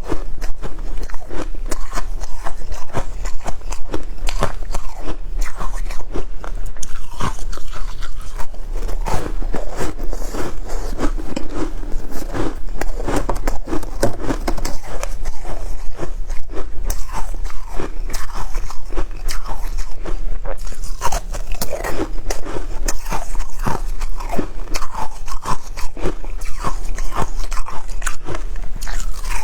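Shaved ice crunching as it is bitten and chewed, a dense, continuous run of crisp crunches.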